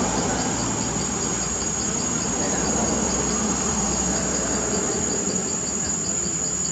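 Insects calling: one steady high-pitched trill, with a second insect chirping in a quick regular pulse about five times a second, over a steady low background noise.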